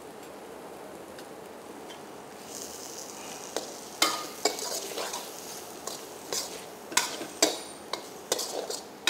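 A spatula stirring and scraping vegetables with ground coconut paste in a kadai, over a steady frying sizzle. From about three and a half seconds in, sharp irregular scrapes and knocks of the spatula against the pan.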